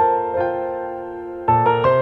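Soft background piano music, notes struck one after another; a lower bass note comes in about one and a half seconds in and the music gets louder.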